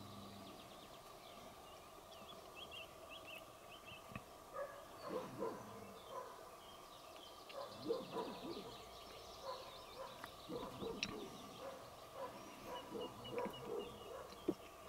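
Faint songbird chirping, joined from about four and a half seconds in by clusters of lower, short repeated animal calls.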